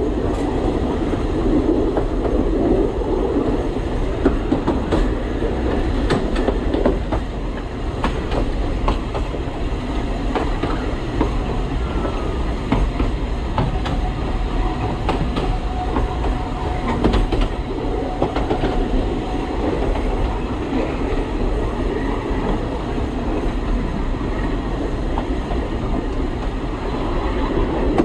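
Alishan Forest Railway narrow-gauge train running along the track: a steady rumble with wheels clicking over rail joints. A faint steady whine is heard for several seconds midway.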